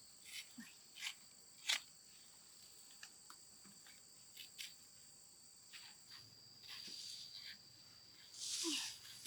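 Steady high-pitched drone of insects, with scattered small clicks and a short louder rustle near the end.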